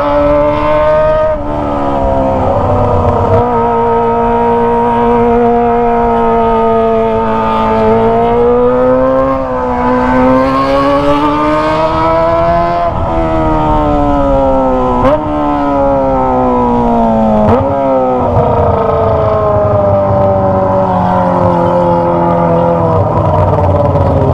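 Kawasaki ZX-25R's 250 cc inline-four engine through a Toce aftermarket exhaust, running while riding. The revs climb and fall over several seconds, with two quick jumps in pitch about two-thirds of the way through, as on gear changes.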